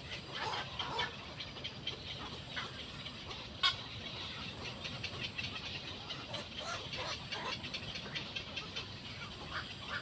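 Scattered short bird calls, quick chirps and rising squeaks, over a steady high hiss of outdoor background noise, with one sharper, louder call about three and a half seconds in.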